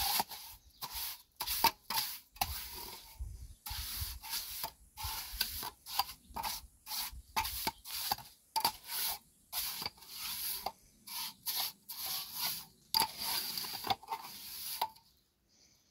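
Steel trowel scraping and smoothing wet cement inside a small cement-block manger, in quick irregular strokes that stop shortly before the end.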